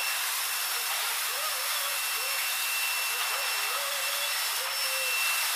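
Bruks Siwertell screw-type ship unloader working coal in a ship's hold: a steady rushing machine noise with a thin high whine over it and a faint warble repeating a few times a second.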